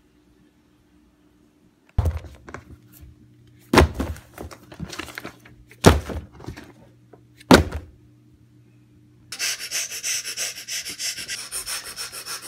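Four hard thumps of a school binder and book being set down on a wooden floor, then, from about nine seconds in, a fast, rhythmic scratching of a pencil on a paper worksheet.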